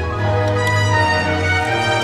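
Orchestral background music with sustained strings and a strong bass line.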